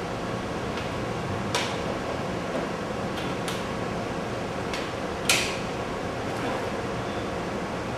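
A few sharp clicks and knocks of computer parts and cable connectors being handled on a table, the loudest about five seconds in, over a steady background hiss.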